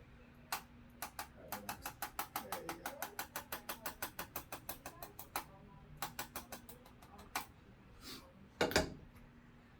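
Arthrostim instrument adjusting tool firing rapid clicking taps, about eight to nine a second, in two runs with a short pause between. A short, louder thump comes near the end.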